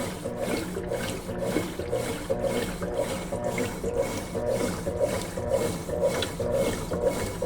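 Agitator of a Consul Facilite 11 kg top-loading washing machine churning clothes and water back and forth, a rhythmic swishing of about two strokes a second.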